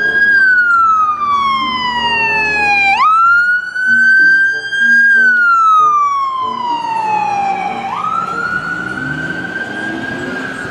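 Ambulance siren wailing: its pitch slides slowly down, then sweeps quickly back up, about three times.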